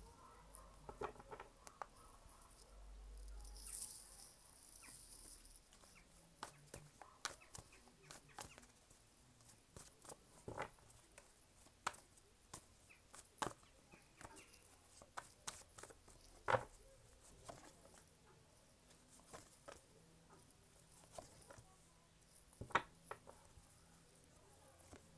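Tarot and oracle cards being handled and laid down on a table: scattered soft taps, flicks and slides of card on card and on the tabletop. Two taps stand out as louder, about two-thirds of the way through and near the end.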